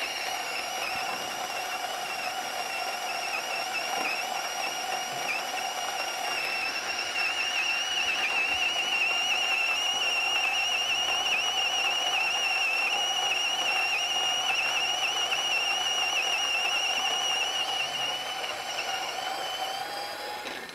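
Option-O Lagom Mini electric grinder with 48 mm conical burrs grinding a 10 g dose of coffee beans at espresso fineness: a steady, high-pitched, slightly wavering motor whine. Near the end it rises a little in pitch as the burrs run empty, then stops.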